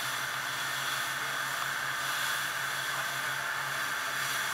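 Motorboat running at speed: a steady low engine drone under a constant rush of wind and water.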